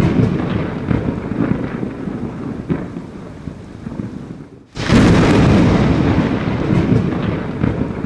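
Thunder rumbling over rain: a loud rumble slowly fades, the sound cuts out abruptly for a moment about halfway through, then a second loud rumble starts and slowly fades.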